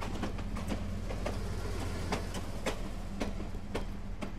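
Steam-hauled passenger train standing or barely moving: a steady low hum with sharp clicks at an even pace of about two a second.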